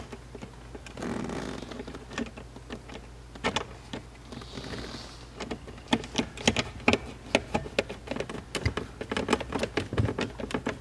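Hand screwdriver driving a screw up into a plastic lower dash panel: a run of short, sharp clicks and ticks, a few at first, then quick and irregular, several a second, from about halfway through.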